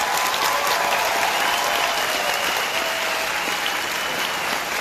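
Large audience applauding: a dense, steady wash of clapping.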